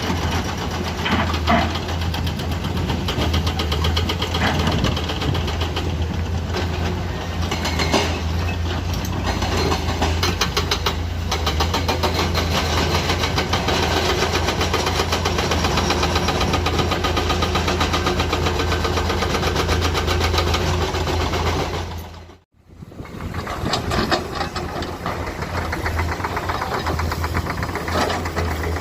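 Komatsu excavator's diesel engine running steadily with a low hum, with occasional short knocks or clanks. The sound cuts out for a moment about three-quarters of the way through, then the engine resumes.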